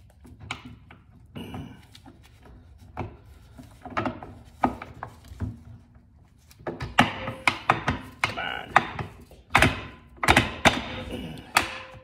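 Hand work on a motorcycle front brake held in a vise: irregular metal knocks and clicks with brief ringing as the brake parts are worked into place. The knocks are sparse at first and come thick and loud from about halfway through.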